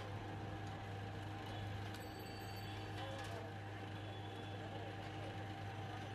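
Steady street background noise with a constant low hum, faint distant voices and a few faint clicks.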